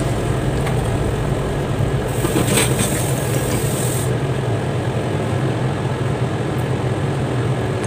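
Steady low motor hum, with a louder hiss from about two to four seconds in.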